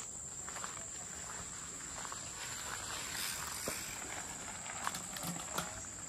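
Steady high-pitched insect drone of crickets or cicadas in tropical forest, holding one tone throughout, with a few footsteps near the end.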